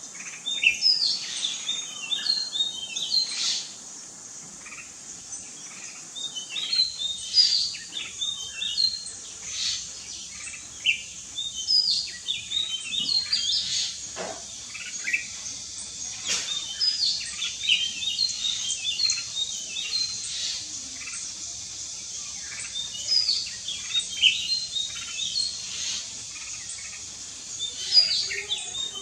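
Jungle mynas calling: clusters of short chirps and whistles come every second or two, over a steady high-pitched hiss.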